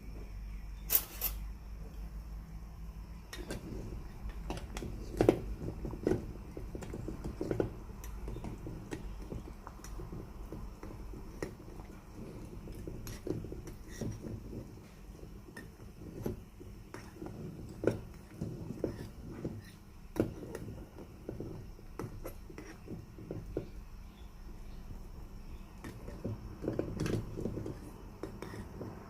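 Irregular clinks and knocks of cookware and utensils, a few sharper than the rest, over a low steady hum.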